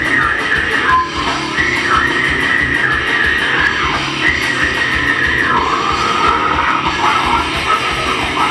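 Live heavy rock band playing loud: distorted electric guitars over a drum kit with fast cymbal hits.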